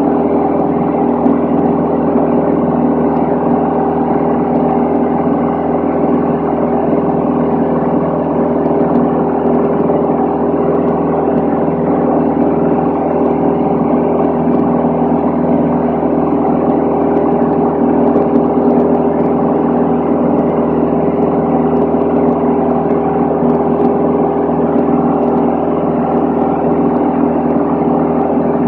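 Steady cruise drone of a Van's RV-10 single-engine piston airplane's engine and propeller, heard inside the cabin: an even, unchanging hum with air noise over it.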